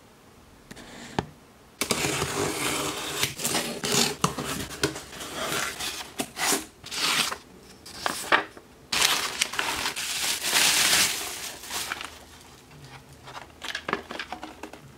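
Cardboard box and paper packing being handled and unpacked: rustling, crinkling and scraping of paper and card, starting about two seconds in and thinning out near the end.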